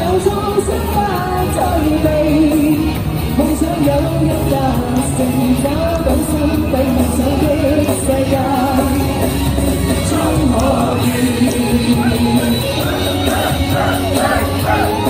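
Live amplified Cantopop-rock band music, with a pitched melodic line and a steady low beat, and a singing voice over it.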